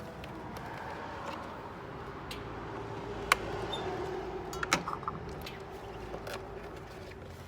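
A steady low hum with a few scattered sharp clicks, the sharpest about three seconds in and a small cluster a little later.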